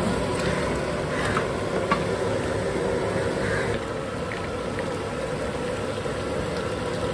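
A huge pot of chicken masala gravy cooking over a gas burner: a steady roar with bubbling and sizzling.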